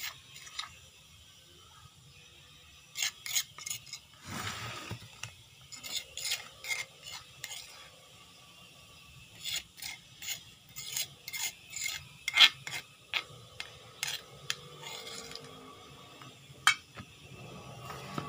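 Metal spoon scraping and clinking against a stone mortar (cobek) as ground chilli spice paste is scraped out, in irregular short strokes with a longer scrape and a few sharper clinks.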